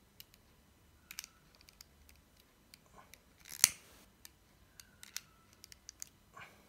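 Small handheld lighter being worked at the cut end of a cord to burn it: scattered small clicks, with one louder sharp snap about three and a half seconds in.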